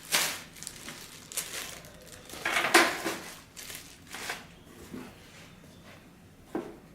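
Packaging being handled during unboxing: irregular crinkling and rustling of plastic wrap and packing material, loudest right at the start and about three seconds in.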